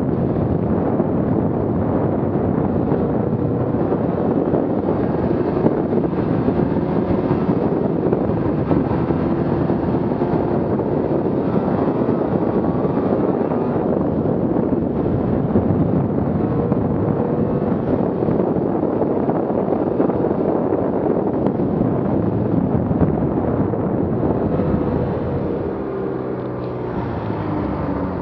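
2017 Arctic Cat M8000 snowmobile's two-stroke twin engine running steadily at trail speed, mixed with wind noise on the microphone, its pitch wavering a little; it eases off and gets quieter near the end as the sled slows.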